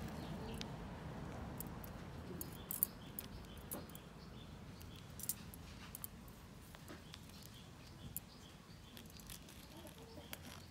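A small stone pressing and scraping on a concrete floor as it crushes blood-filled ticks: faint, scattered small clicks, with a few sharper ones.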